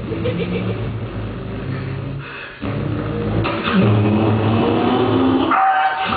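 Mouth-made imitation of a car engine running and revving. It breaks off briefly about two and a half seconds in, then comes back with a slowly rising pitch.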